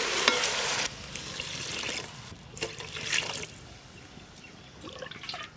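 Water poured from a steel tumbler into a pot of fried vegetables, the rushing pour cutting off about a second in. Then a few quieter splashes and clinks as the tumbler is dipped into a metal water pot for the next pour.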